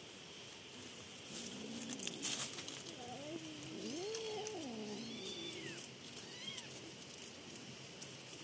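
Kitten growling and yowling while guarding a fish from another cat. A short low moan comes first, then a long wail that rises and falls in pitch.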